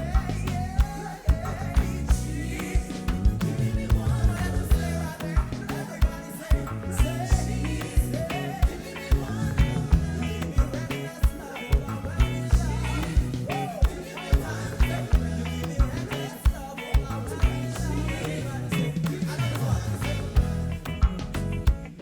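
Live band playing gospel reggae with a steady beat, bass, drums and guitar, and a voice singing over it.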